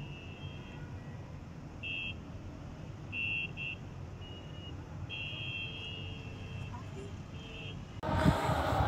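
High-pitched beeping tones sound on and off over a low rumble, some short and some held for about a second. Near the end this cuts to the louder noise of a large crowd.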